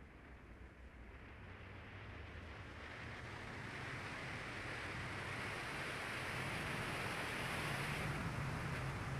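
Wind and road noise from a Ford Fiesta ST driving. It is a steady rush that grows louder from about three seconds in, with a low hum underneath.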